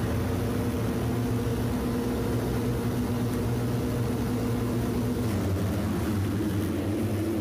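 Steady engine drone with a low hum and a few held tones that step down slightly in pitch about five seconds in.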